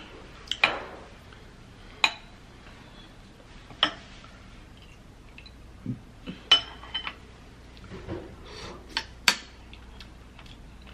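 A metal spoon clinking against glass bowls of gumbo, a handful of sharp clinks a second or more apart, some with a short ringing tone, as the spoon scoops and is lifted to taste.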